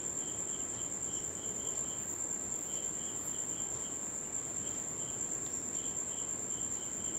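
Crickets chirping in short chirps repeated in small groups, over a steady high-pitched whine.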